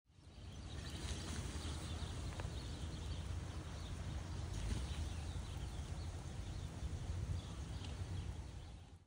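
Steady low wind rumble on the microphone, with faint crackles and pops from a split-log wood fire burning under a steaming fish-boil kettle.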